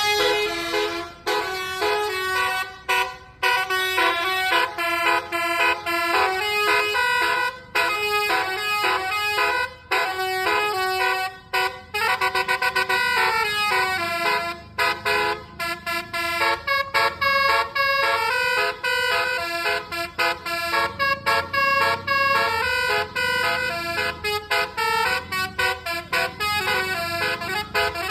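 A bus's telolet horn playing a tune: a rapid run of pitched air-horn notes that change every fraction of a second, with brief breaks between phrases.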